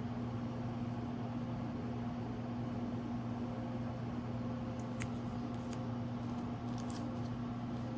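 Steady low electrical hum, even throughout, with a few faint clicks about five to seven seconds in.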